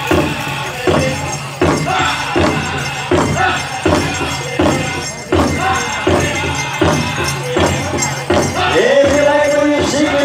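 Powwow drum struck in a steady beat, a little over one beat a second, with the jingling of dancers' leg bells. Near the end a high, held singing voice comes in over the drum.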